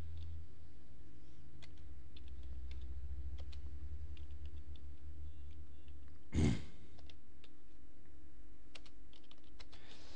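Computer keyboard typed slowly, one-handed: scattered single key clicks over a low steady hum. About six seconds in there is one short, louder thump.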